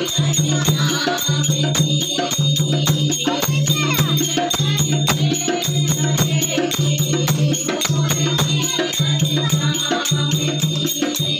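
Devotional kirtan music: a group of women singing a Mata bhajan, accompanied by a dholak beat and rattling hand percussion keeping a steady rhythm.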